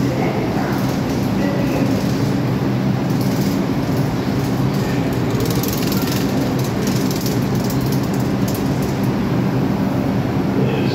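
New York City subway train running with a steady low hum and rumble, starting to move out of the station near the end.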